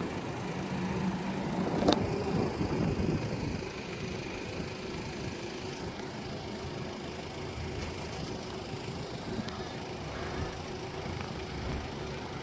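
Road traffic at a level crossing: a motor vehicle's engine, loudest over the first few seconds with a low steady hum, with a single sharp click about two seconds in, then a steady background of traffic.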